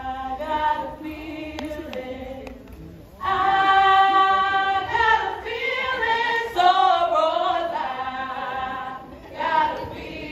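A group of women singing together a cappella in held notes, the loudest passage beginning about three seconds in.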